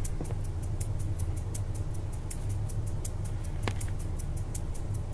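Background music: a low, steady bass drone under a fast, even ticking beat, about five ticks a second.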